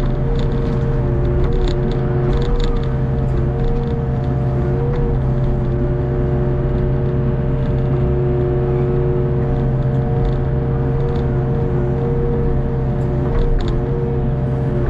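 Hitachi ZX48U mini excavator's diesel engine and hydraulics running steadily as the arm and bucket work, with a steady whine whose pitch dips briefly a few times. A few light clicks and knocks come in the first few seconds and again near the end.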